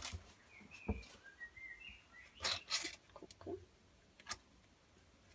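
Trading cards and a booster-pack wrapper being handled: a few soft taps and rustles, with a faint high chirp lasting about a second in the middle.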